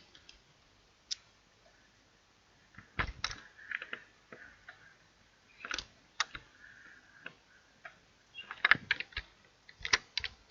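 Computer keyboard and mouse clicking at irregular intervals, single clicks and short runs of keystrokes, with a quick flurry near the end.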